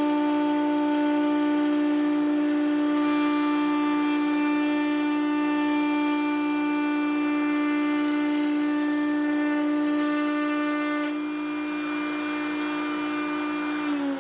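Router in a router table running with a steady high whine as a cherry door panel is fed past a pointed V-groove bit to cut beadboard-style grooves. The higher part of the whine drops away about eleven seconds in, and at the very end the motor is switched off and its pitch starts to fall as it spins down.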